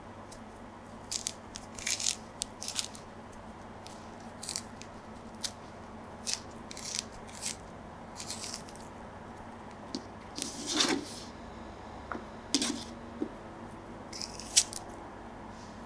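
An orange being peeled by hand: irregular short crackles and tearing of the peel, with a few sharper snaps standing out.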